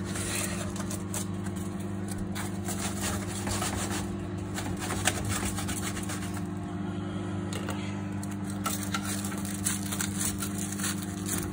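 Knife cutting through a flaky puff-pastry crust on a foil-lined baking tray: scattered small crackles and scrapes of pastry and foil, over a steady low hum.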